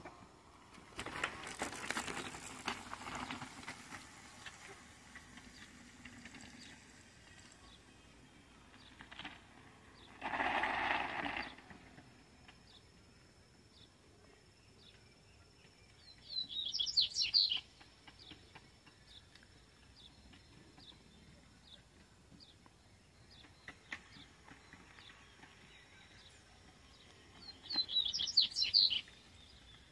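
A bird calls twice, each time a short run of quick, high chirps, once about halfway through and again near the end. Before that there is faint rustling for the first few seconds and a brief hiss about a third of the way in.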